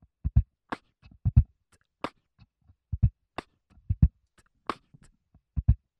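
Beatboxed drum groove: deep kick sounds, often in quick pairs, and sharp snare sounds about every 1.3 seconds, repeating as a steady bar-long pattern.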